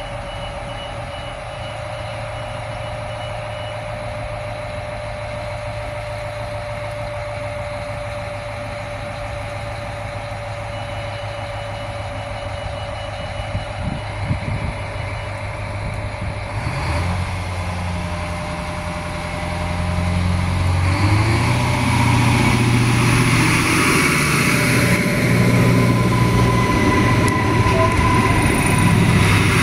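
Adelaide Metro 3000-class diesel railcar idling at the platform with a steady engine hum, and a high repeated beeping at the start and again about halfway. About 17 s in, the engine revs up in steps and the railcar pulls away, growing louder as it passes.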